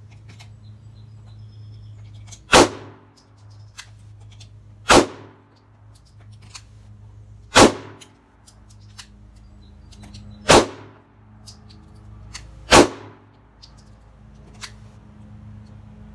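Five pistol shots fired slowly at a target, two to three seconds apart, with a few faint clicks between them.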